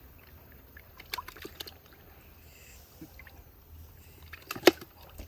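Water sloshing and trickling as snakehead fish are lowered back into a pond, with a few light knocks a little over a second in and one sharp smack near the end.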